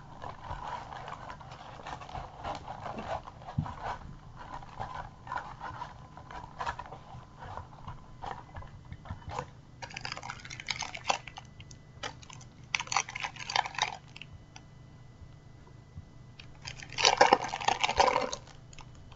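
Trading cards being handled, with soft rustling and small clicks, then a foil card packet crinkling in short loud bursts, the loudest near the end.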